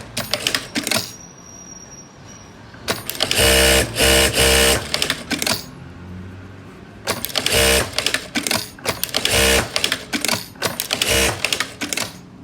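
Bruce R5-Q computerised industrial sewing machine stitching in several short runs, each lasting about half a second to two seconds. Between the runs there are sharp mechanical clicks from the automatic presser-foot lift and thread trimmer.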